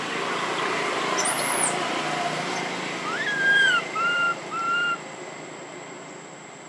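An animal's clear, pure-toned calls, three in a row about halfway through: one longer note that rises and then dips, followed by two short level notes.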